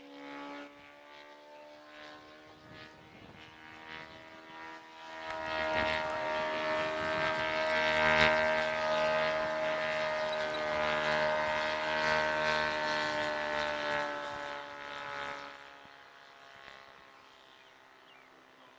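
Radio-controlled Hangar 9 Cessna 182 model airplane in flight, its motor and propeller giving a steady pitched drone. It grows loud as the plane passes close by about five seconds in, then fades again about fifteen seconds in.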